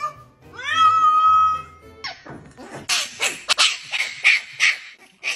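A cat's drawn-out meow that rises and then holds, followed by a dog's quick barks, about three a second.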